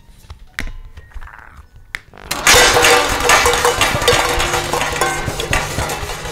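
Metal pots, pans and kitchenware crashing and clattering. The crash starts suddenly about two seconds in after a few scattered clicks, then carries on as a dense clatter that slowly eases, over a tense orchestral film score.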